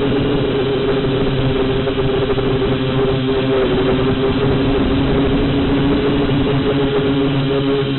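Whirlwind XK X251 quadcopter's brushless motors and propellers whining steadily in flight, picked up close by its own onboard camera, with an even pitch throughout.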